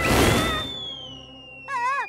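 Cartoon sound effects: a short noisy whoosh at the start, then a long high tone that slides slowly downward. Near the end comes a brief wavering squeal from a cartoon ant.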